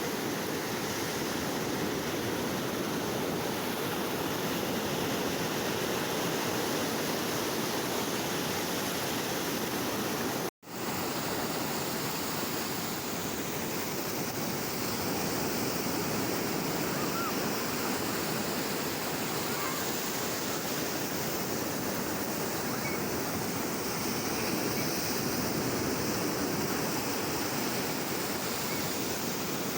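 Sea waves breaking and washing on the shore, a steady rush of surf that cuts out for an instant about ten seconds in.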